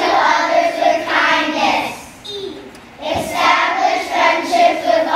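A group of young children singing together in unison, in two phrases with a short break about two seconds in.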